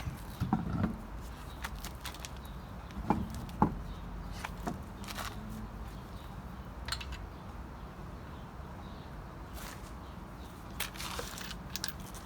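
Scattered clicks and knocks of a car wheel being hung on the hub studs and handled, with two sharper knocks about three seconds in, over a steady low hum.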